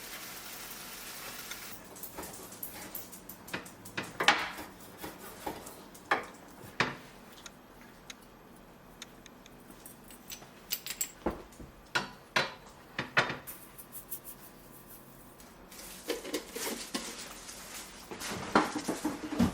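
Kitchen utensils clinking and knocking against a pan and dishes, in scattered strikes. Food sizzles in a pan for the first two seconds, then stops.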